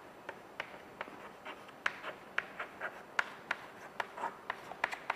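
Chalk writing on a blackboard: an irregular run of short taps and scratches as letters are chalked.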